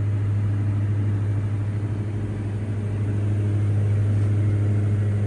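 Steady cabin drone of a Diamond DA62's twin turbodiesel engines and propellers at approach power, a low, even hum with no change in pitch.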